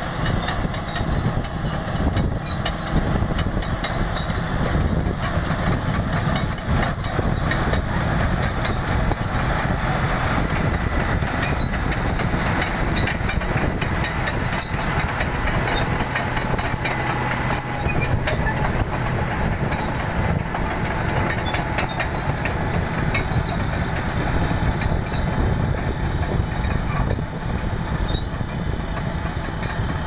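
Caterpillar crawler bulldozer's diesel engine running steadily under load while it tows an implement, with the clatter of its steel tracks.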